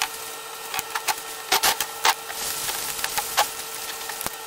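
Small metal parts and hand tools handled on a Weber carburetor during bench assembly: a scattered series of sharp clicks and taps, the loudest cluster about one and a half to two seconds in, over a faint steady hum.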